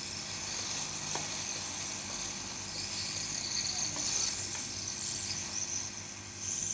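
Hot-air rework blower running with a steady hiss while it heats a phone motherboard, with a few faint ticks.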